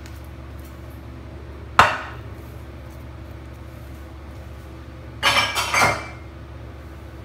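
Glass bowl and kitchenware knocked down on a marble countertop: one sharp clink-knock about two seconds in, then a short clatter of knocks and clinks a little past five seconds.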